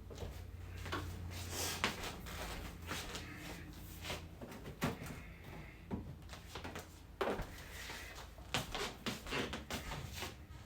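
Irregular knocks and clatter of food containers and items being handled and taken out of a refrigerator, over a low steady hum.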